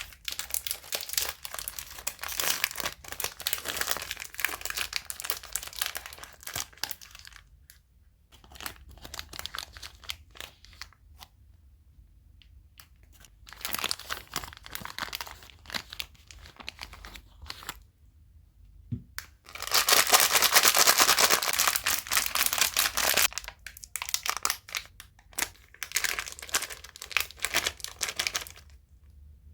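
Plastic sweet wrappers and packets crinkling and tearing open, in several bouts of crackling with short quiet gaps between them. The loudest bout comes about two-thirds of the way through.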